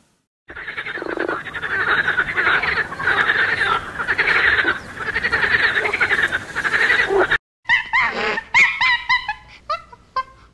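A dense chorus of many frogs croaking, which cuts off about seven seconds in. It is followed by a run of short, repeated pitched calls from another animal that fade toward the end.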